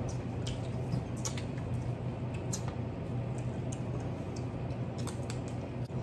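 People eating a crab boil: scattered small clicks and cracks of crab shells being broken and picked apart, with mouth sounds, over a steady low hum.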